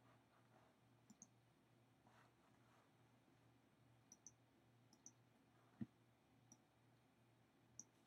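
Near silence: room tone with a low steady hum and faint scattered clicks, the loudest about six seconds in.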